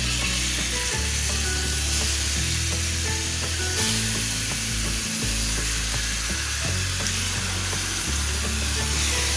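Marinated chicken wings frying in hot oil in a pan with onion, garlic and finger chilies: a steady, even sizzle.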